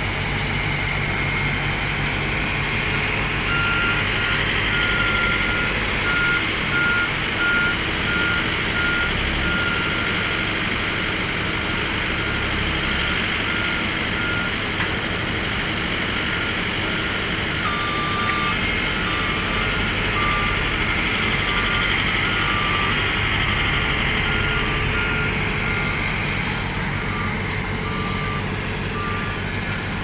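Road rollers' engines running while compacting fresh asphalt, with a reversing alarm beeping steadily. About halfway through, a second reversing alarm at a slightly lower pitch joins in, so two beep patterns overlap.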